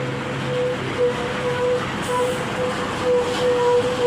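Tourist bus 'telolet' air horn sounding one long steady note that starts just after the beginning and holds on, wavering slightly in loudness.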